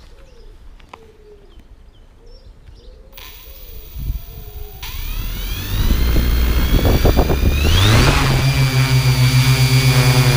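Quadcopter drone's electric motors and propellers spinning up, their whine rising in pitch in steps. The pitch climbs sharply about eight seconds in as the drone lifts off. It then holds a loud, steady high whine over a low pulsing hum.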